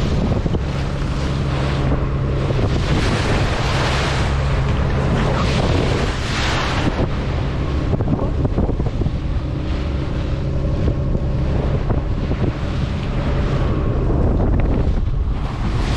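A fishing boat's engine running steadily at sea, with heavy wind buffeting the microphone and waves rushing along the hull. The rush of water swells louder a few seconds in and again about six seconds in.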